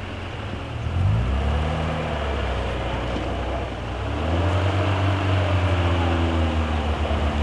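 Off-road 4x4's engine revving under load: it climbs in pitch about a second in, eases off, then revs up again about four seconds in and holds high.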